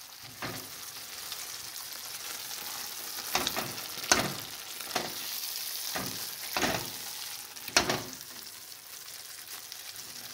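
Ground beef sizzling as it fries in a stainless steel pot. It is being stirred with a spatula, which scrapes and pushes through the meat in about seven separate strokes.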